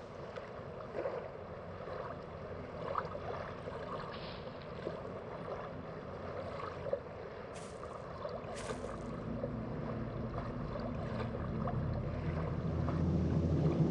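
Steady windy, watery outdoor ambience with two sharp ticks about a second apart just past the middle. A low musical drone swells in over the second half.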